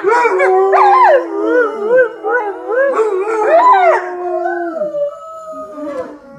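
A pack of dogs howling together, a basset hound and a Dalmatian among them: several long howls at different pitches overlap, some held steady and some wavering up and down. After about four seconds the chorus thins to one or two held howls, which fade near the end.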